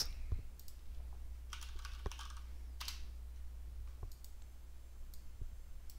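Scattered clicks from a computer keyboard and mouse, with a short run of keystrokes about two seconds in, over a faint low hum.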